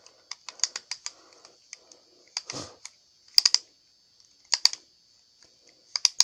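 Plastic spinning-top launcher being wound by hand, its ratchet clicking. There is a quick run of clicks at first, then short clusters of clicks about a second apart.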